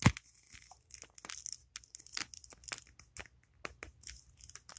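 Close handling noise: scattered small clicks, taps and rustles as hands work a plastic action figure, with one sharper click right at the start.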